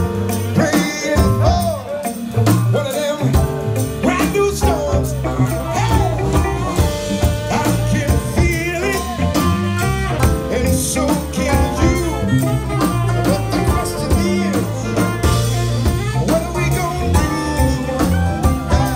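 Live funk-soul band playing: electric guitar and drum kit over a low bass line, with a steady beat.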